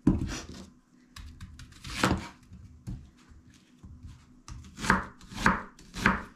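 Kitchen knife cutting an onion on a wooden cutting board: separate sharp knocks of the blade on the board, one at the start, another about two seconds in, and three more about half a second apart near the end.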